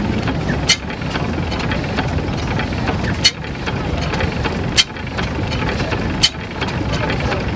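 Vintage stationary engine running slowly, with a steady low rumble. Four sharp metallic clicks come at uneven gaps of about one and a half to two and a half seconds.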